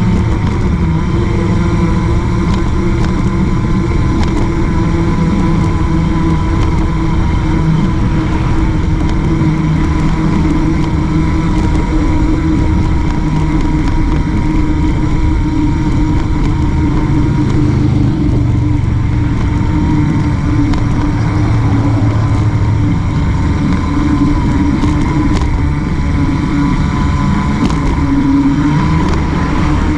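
Steady, loud road and riding noise: passing car traffic and wind on a bicycle-mounted camera, with a constant hum underneath.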